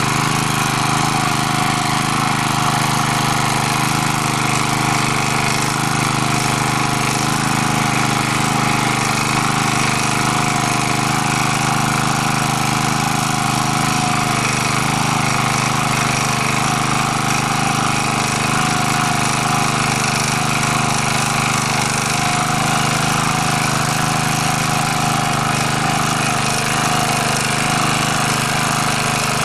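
MD3 walk-behind tractor engine running steadily in first gear while its rotary tiller churns garden soil.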